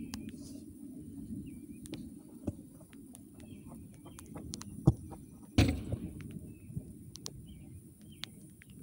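Birds chirping over a low steady rumble, with a soccer ball kicked with a sharp thud about five seconds in and a louder thump just after.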